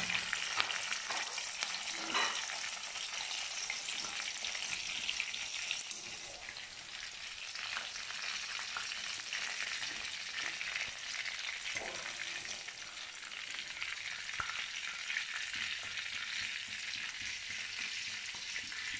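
Onion pieces deep-frying in hot oil in a steel wok: a steady sizzle throughout, with a few light knocks.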